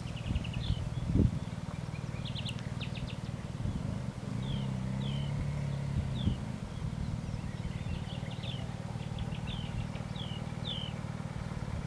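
A low, steady engine rumble whose pitch shifts slightly partway through, with small birds giving repeated short falling chirps over it and a couple of knocks about a second in.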